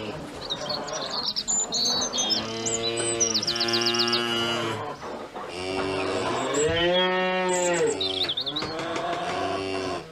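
Cows mooing, a series of long lows one after another, one of them rising and then falling in pitch about midway. Small birds chirp and trill over the first few seconds.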